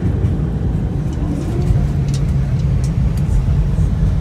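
Cabin noise of an Airbus A320 rolling on the ground after landing: a loud, steady low rumble from the engines and the wheels on the pavement, with a few faint clicks and rattles.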